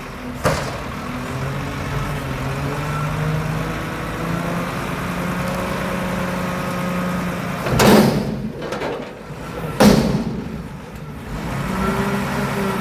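Diesel engine of a Mack McNeilus front-loader garbage truck running, its pitch shifting slowly. There is a sharp knock about half a second in and two loud bangs about eight and ten seconds in.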